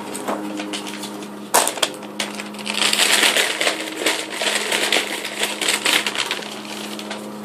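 A brown paper bag shaken hard, the paper crinkling and the pieces inside rattling, after a single sharp knock about one and a half seconds in.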